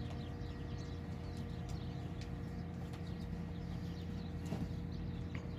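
Quiet outdoor background with a low steady hum and a few soft, scattered ticks as a horse walks slowly on sand, its hooves muffled by the sand.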